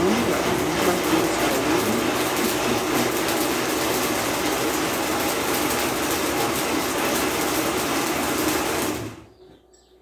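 Electric countertop blender running steadily, puréeing grapes in water into juice, then switched off about nine seconds in.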